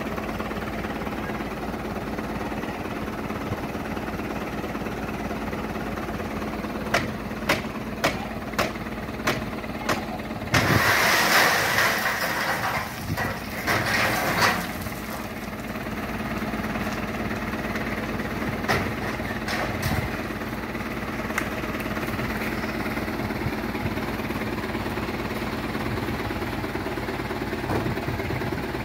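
Old dump truck's engine idling steadily while its load of gravel and stones is unloaded. About 7 s in come six sharp knocks, then a loud rush of gravel spilling from the back of the truck for about four seconds.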